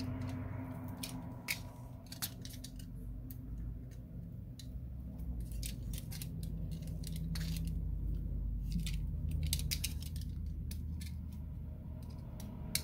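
Irregular small clicks and scrapes of a pointed metal tool picking at the edge of a phone's frame, lifting the plastic liner off double-sided adhesive, over a low steady hum.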